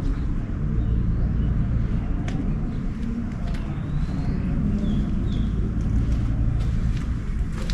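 Outdoor ambience: a steady low rumble, with a few faint high chirps about halfway through.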